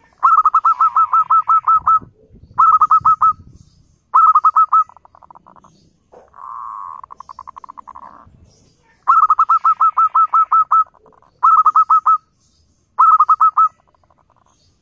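Zebra dove (perkutut) cooing in six quick staccato phrases of repeated notes, about six a second. A longer, rougher purring call comes about halfway through.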